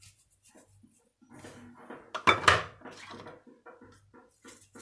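Hands handling a small spice container over a mixing bowl: light rustling and clatter, with one louder, brief rustling clatter a little over two seconds in.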